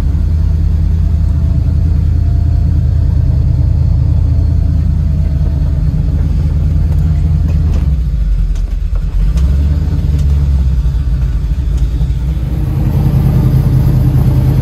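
Small-block Chevy V8 running at idle with a steady low rumble; the note shifts briefly about eight seconds in.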